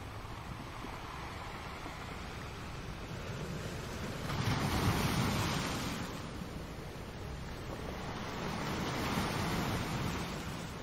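Ocean surf: a steady wash of waves, with one wave breaking louder about four seconds in and a gentler swell near the end.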